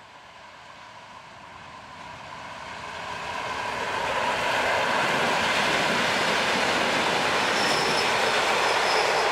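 PKP EN57 electric multiple unit approaching and passing at speed. Its running noise swells over the first four seconds, then holds loud and steady. A faint high tone appears near the end.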